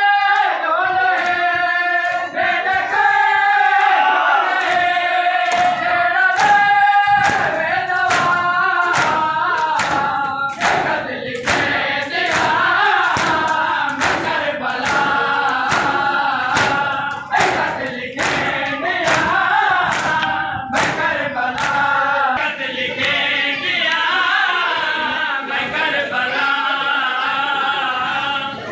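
A crowd of men chanting a Muharram mourning lament (noha) together, with the sharp rhythmic slaps of chest-beating (matam), about two a second, through the middle stretch.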